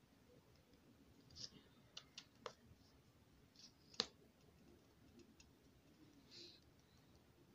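Faint handling noises of mascara being applied with a card shield: a few light clicks, the sharpest about four seconds in, and brief soft scratchy rustles.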